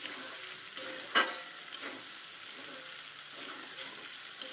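Vegetables and masala sizzling in oil in a metal kadhai while a metal spatula stirs and scrapes them, the bhuna stage of frying the spices with the vegetables. One sharp knock about a second in.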